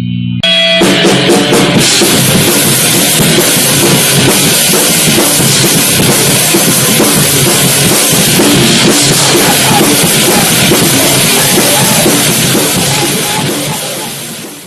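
Loud rock music with a pounding drum kit, starting abruptly about half a second in and fading out at the end.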